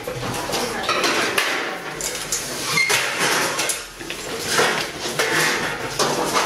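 Metal folding chairs clattering as they are folded, carried and stacked, with repeated knocks and rattles.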